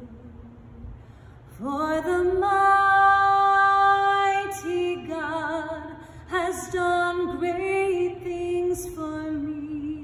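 Background music of a woman singing slowly in long held notes with vibrato. A softer note at the start gives way to a louder, higher note about a second and a half in.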